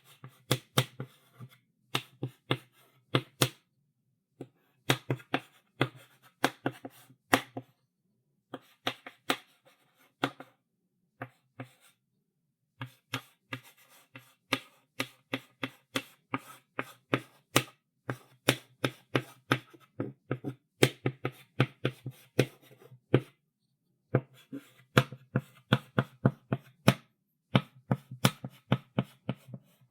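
Chalk writing on a blackboard: a fast run of sharp taps and short strokes of the chalk against the board, in bursts broken by brief pauses of about a second.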